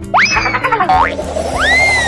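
Cartoon sound effects over background music: a quick upward swoop with a boing-like bounce just after the start, and a second whistle-like glide that rises and then slowly falls in the second half.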